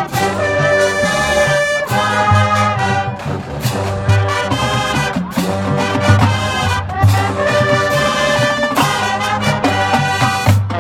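Marching band brass playing full, held chords over a pulsing low brass line, in phrases with short breaks between them.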